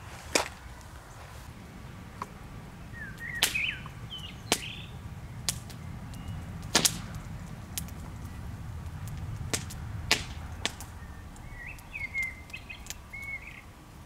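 Dry kindling snapping in a string of sharp, separate cracks, about ten of them spread irregularly. Small birds chirp briefly twice, over a low steady rumble.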